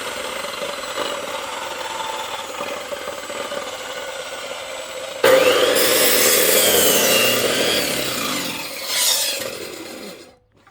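Electric saw running, then about five seconds in it bites into a log and cuts through it loudly for several seconds, before fading out and stopping just before the end.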